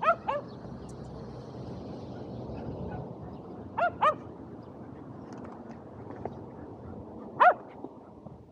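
Shetland sheepdog giving short, high-pitched barks in excitement at frisbee play: two quick barks, then two more about four seconds in, then a single bark near the end.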